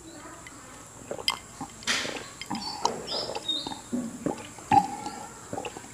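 A glass of iced tea being drunk: irregular slurps and swallows, with small clicks and a few brief high clinks.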